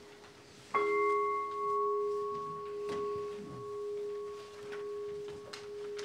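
A bowl bell struck once, just under a second in, then ringing on in one long, slowly fading tone that wavers in loudness about once a second.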